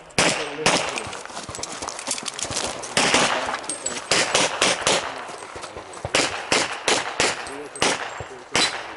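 Handgun shots fired in quick pairs and short strings, more than a dozen in all, with a pause of nearly two seconds after the first few shots while the shooter moves to the next position.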